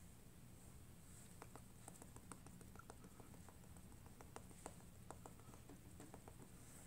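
Near silence with faint, irregular little ticks and pats from a makeup sponge being dabbed against the cheek to blend blush, over a low room hum.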